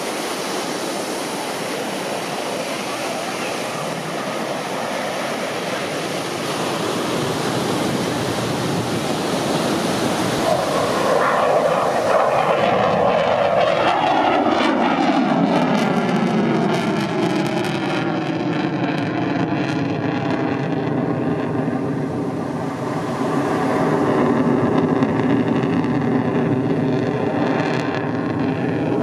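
Airplane flying past: its engine noise swells, drops in pitch as it passes about halfway through, then rises again near the end.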